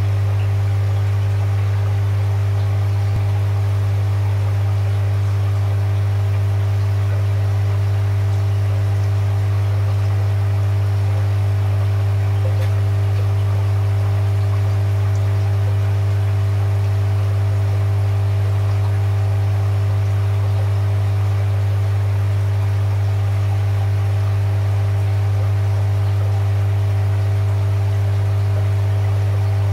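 Steady, loud low hum of aquarium equipment, unchanging throughout, over a faint hiss of bubbling from an airstone.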